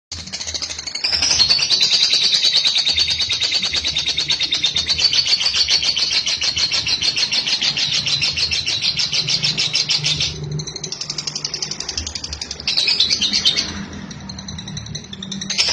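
Fischer's lovebird giving its long, rapid, rattling chatter trill ('ngekek panjang'), high-pitched and held for about nine seconds. After a short break it gives a shorter burst, then starts again at the end.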